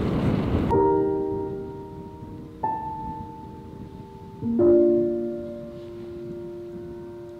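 Slow background piano music: sustained chords, each struck and left to fade, changing every two seconds or so. It comes in under a second in, when a rush of noise cuts off sharply.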